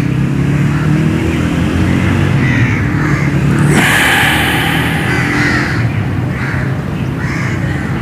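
Crows cawing several times over a steady low traffic rumble, with a brief rush of noise about four seconds in.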